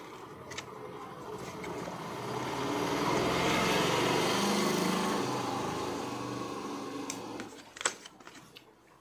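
A motor engine passing by: it swells to a peak about four seconds in and fades away. A couple of sharp clicks of paper card being handled near the end.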